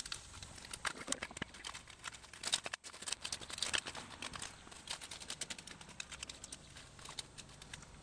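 A 36-inch aluminum landscape rake scraping and dragging through dry, powdery dirt, with a run of irregular gritty clicks and ticks as its tines catch small stones.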